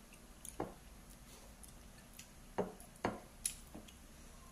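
Quiet eating sounds: a few soft, wet chewing smacks and small clicks, spaced irregularly, the loudest a cluster between about two and a half and three and a half seconds in.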